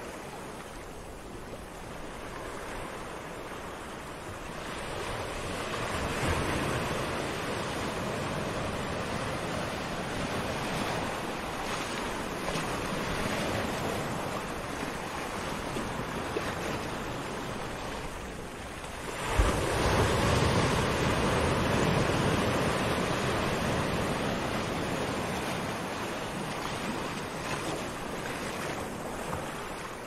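Small waves washing up and draining back on a sandy beach, the surf swelling and easing. A larger wave breaks about two-thirds of the way through and slowly dies away.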